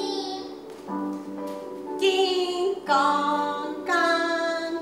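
Singing from a musical number over instrumental backing, in long held notes with a new one beginning roughly every second.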